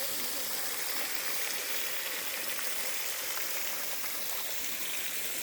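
Small waterfall: water falling and rushing in a steady, even hiss.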